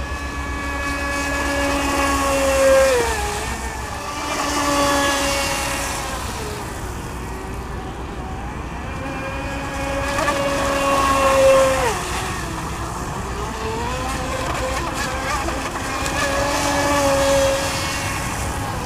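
X-Blaze RC speedboat's water-cooled brushless outrunner motor whining at speed, with the hiss of its spray. The whine swells and fades four times, and its pitch drops sharply about three seconds in and again about twelve seconds in.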